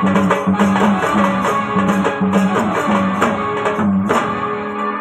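Live instrumental Marathi folk music for a gavlan dance: a keyboard holding a melody over a steady hand-drum beat, with a brief break about four seconds in and then a strong drum stroke.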